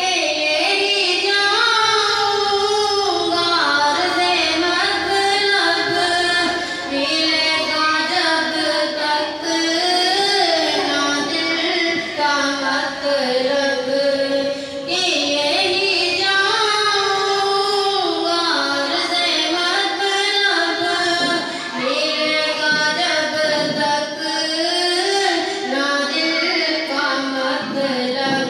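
A boy singing a naat (a devotional poem in praise of the Prophet) solo into a handheld microphone, in long ornamented melodic phrases with only brief pauses for breath.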